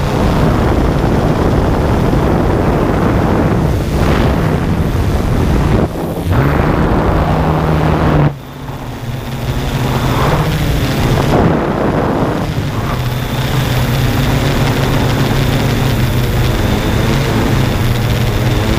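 Yuneec Typhoon G drone's motors and propellers humming steadily, heard from on board, with wind noise over the microphone. The sound drops suddenly about eight seconds in, then builds back over a couple of seconds.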